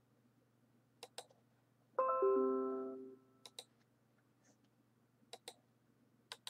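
Computer mouse clicks, in quick pairs several times. About two seconds in, a two-note falling electronic chime sounds and rings out over about a second.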